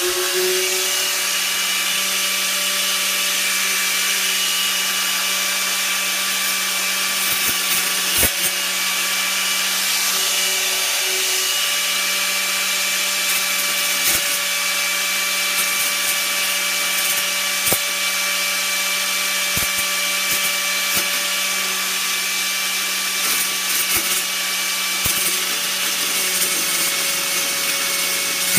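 Hyper Tough angle grinder running steadily, its cutting wheel grinding into the thick steel of a Stanley nail claw: a constant whine over a hissing rasp, with occasional sharp ticks.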